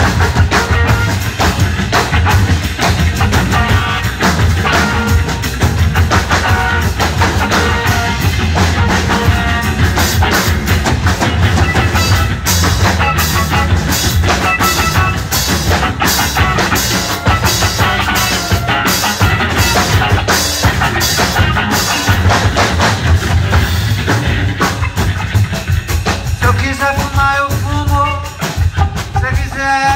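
Live noise rock band: electric guitars and drums playing a loud, dense instrumental passage with frequent drum hits. About three seconds before the end the drums drop back and a wavering melodic line comes forward.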